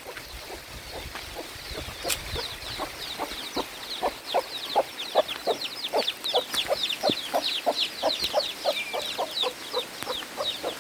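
A hen clucking steadily, about three clucks a second, while chicks peep in many quick, high, falling chirps that grow busier after the first couple of seconds.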